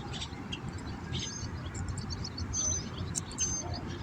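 Small birds chirping a few times, short high calls, over a steady low outdoor rumble with scattered faint clicks.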